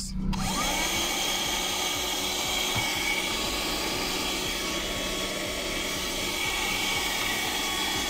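Piranha PVC-4005 cigarette-lighter-powered 12-volt handheld car vacuum cleaner switched on: its motor starts just after the beginning, then runs steadily with a rush of air and a high whine.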